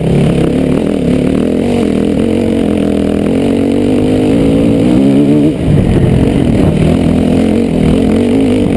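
Dirt bike engine pulling uphill under load, its pitch wandering with the throttle. About five and a half seconds in it briefly drops off, then picks up again.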